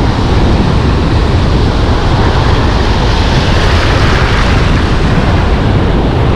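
Loud, steady rush of wind buffeting the microphone over breaking surf.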